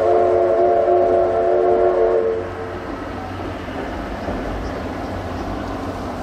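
Steam locomotive whistle blowing a held chord of several tones that cuts off about two seconds in, followed by the steady rumble of the train running.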